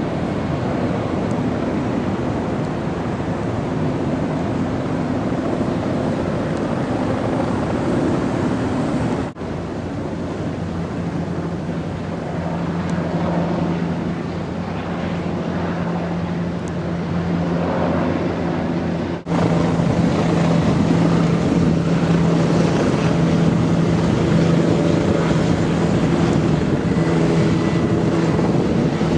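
Steady, loud drone of engines with outdoor noise and wind on the microphone, with a low hum running through it. The sound breaks off and changes abruptly twice, about nine and nineteen seconds in.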